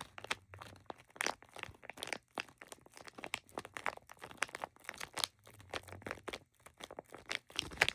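Thin plastic bag crinkling and crackling as it is handled, a dense run of irregular crackles.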